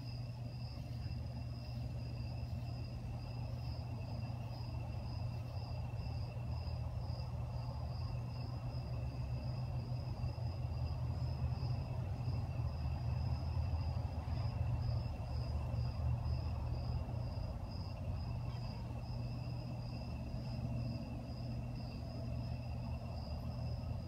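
Night insects trilling without a break at one high, slightly pulsing pitch, over a steady low hum.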